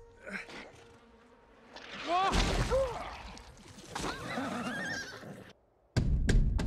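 A thump about two seconds in, then several horses whinnying in short calls that rise and fall in pitch, with more neighs about four seconds in. After a brief hush near the end come a few sharp knocks.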